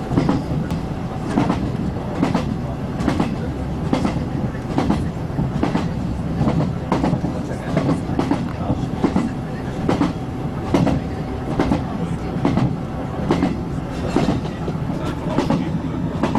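A diesel passenger train running at steady speed, heard from inside the carriage: a continuous rumble with the wheels clicking over rail joints about once a second.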